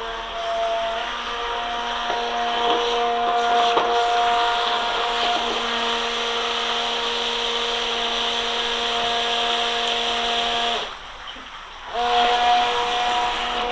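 RC jet boat's small electric water-jet drive running with a steady whine over rushing water. About eleven seconds in, the motor cuts out for about a second, then starts again.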